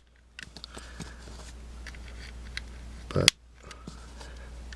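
Faint small plastic clicks and scraping from coloured tiles being handled and pressed onto a Rubik's cube, the tiles clipping on by their little teeth.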